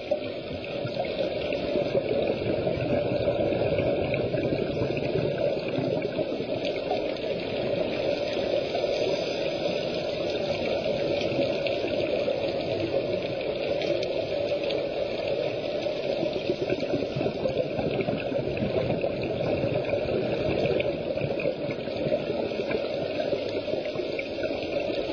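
Steady underwater noise of water and rising scuba bubbles, recorded by a submerged camera, with no clear rhythm or change.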